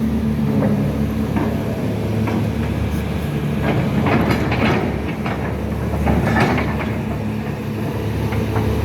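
Caterpillar 336 hydraulic excavator's diesel engine running steadily, with a burst of metallic clanking and rattling in the middle.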